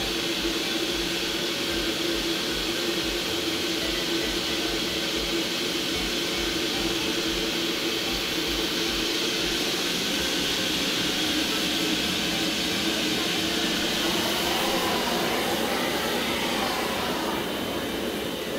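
Vacuum running steadily as its hose nozzle sucks loose, unbound sand out of a sand 3D printer's job box to free the hardened printed parts. The pitch wavers briefly about three-quarters of the way through.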